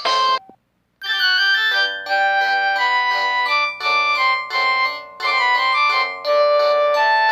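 A mobile phone's polyphonic ringtone. One tune cuts off about half a second in, and after a brief silence a new piano-like keyboard melody starts, playing quick separate notes.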